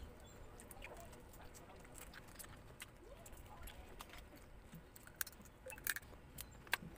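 Close-up eating of cooked crab by hand: chewing and sucking meat from the shells, with scattered small clicks and cracks of crab shell, a few louder ones near the end.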